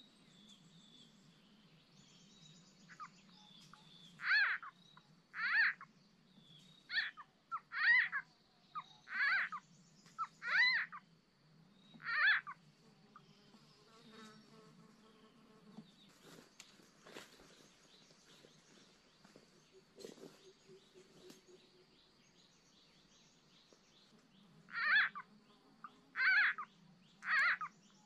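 Small frogs calling: a run of short, loud croaks roughly one a second, then a stretch of about ten seconds with only faint calls, then three more croaks near the end. A faint steady high tone and a low hum run underneath.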